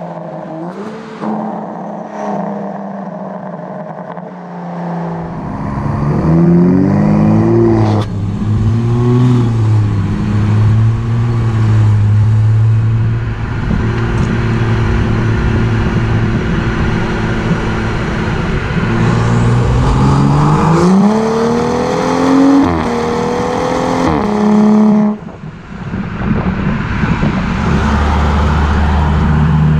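BMW F30's petrol engine heard at the tailpipe of its custom exhaust while driving. It runs steadily, then revs up about five seconds in and again around twenty seconds in, its pitch climbing and breaking several times, cuts back sharply about 25 seconds in and settles into a steady run.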